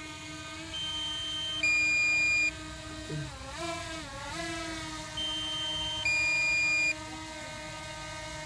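DJI Mini 2 drone hovering close by, its propellers giving a steady high whine that wavers in pitch for a moment about halfway through. Twice a two-tone warning beep sounds, a higher note then a louder lower one: the low-battery alarm.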